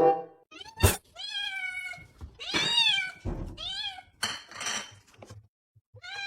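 A cat meowing over and over, about five drawn-out meows that rise and fall in pitch, after a sharp click just under a second in.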